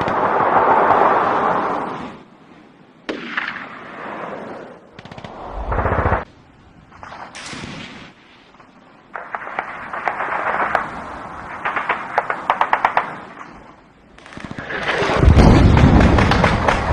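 War sound effects: swelling rushes of noise broken by rapid trains of gunfire-like cracks, with a deep booming blast near the end that is the loudest moment.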